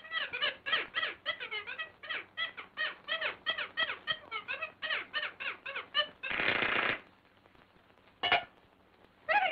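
Cartoon soundtrack effect: a fast run of short, high, rising-and-falling chattering calls, about four or five a second, broken off by a short harsh blast of noise about six and a half seconds in.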